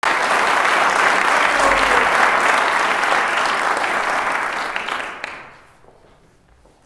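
Audience applauding, then dying away over about a second near the end.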